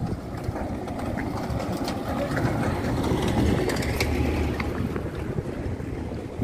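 Wind buffeting the microphone: a low, steady rumble that swells toward the middle.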